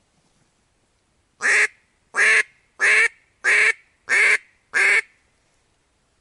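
Duck quacking: six loud, short quacks in an even series, starting about a second and a half in.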